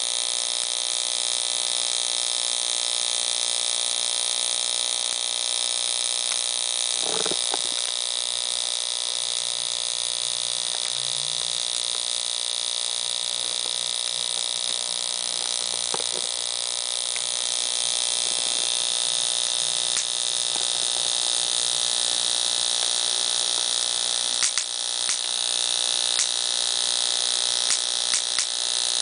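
Ignition coil firing continuously through a spark plug wire into an inline spark gap tester: a steady, high-pitched rapid buzz of sparks snapping across the gap, with a few faint clicks near the end.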